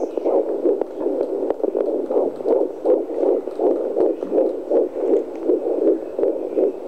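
Fetal heartbeat at 13 weeks of pregnancy, picked up by a home fetal Doppler and played through its speaker: a fast, even train of pulses, about three a second.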